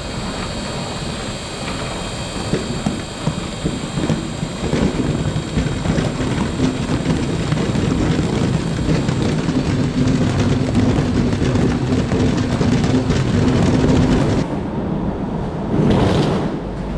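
Car driving: a steady, loud, low rumble of road and engine noise, with a faint hum coming through in the middle and a short change near the end.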